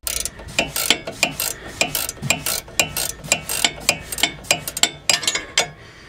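Ratchet wrench clicking rapidly and unevenly as it works the nut on a sway bar link under a car's front suspension.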